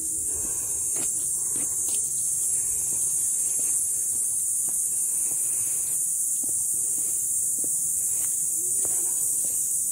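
A steady high-pitched hiss, with a few faint clicks and short low sounds underneath.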